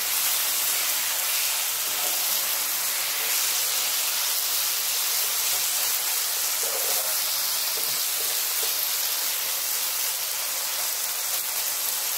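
Chicken thigh pieces in a caramel and soy-sauce marinade sizzling steadily in a nonstick frying pan over raised heat. A wooden spatula stirs them now and then with soft scrapes.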